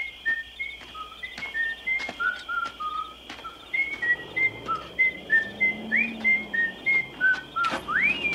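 A man whistling a tune as he walks: short notes hopping up and down in pitch, two or three a second, ending with a long slide up and back down near the end.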